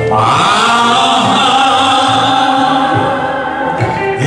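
Church choir and congregation singing a gospel song together, holding a long sustained chord with backing music.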